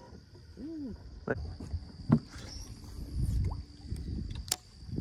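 Scattered knocks and thumps of handling on a bass boat, the loudest about two seconds in and another sharp click near the end, over a steady high insect buzz.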